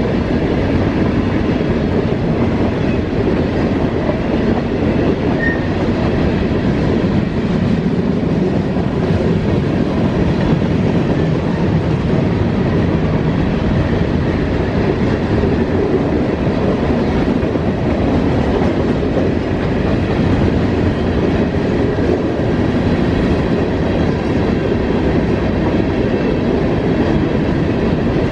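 Freight train of covered hopper cars rolling steadily past, a continuous, even rumble of cars and wheels on the rails.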